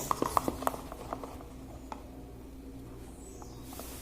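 Light clicks and taps of a spoon against a small plastic pot as paint is added to slime glue, several in the first second, then only faint handling and a soft hiss near the end.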